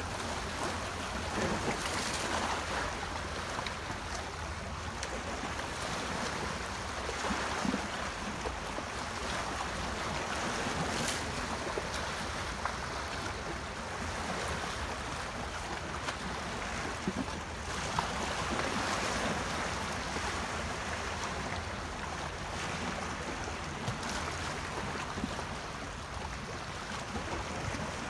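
Small choppy Lake Michigan waves washing and splashing against shoreline rocks, in a steady wash that swells louder every few seconds.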